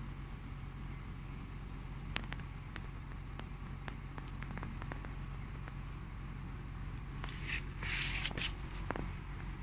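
Steady low mechanical hum, with scattered faint clicks and a brief louder rustle about eight seconds in.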